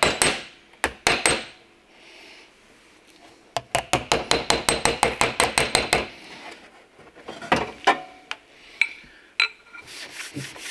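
Steel car door skin tapped with a small panel-beating hammer in quick runs of light taps, about eight a second at the fastest, knocking down the high spots around a pulled-out dent. Near the end a hand rubs across the panel to feel for the remaining dent.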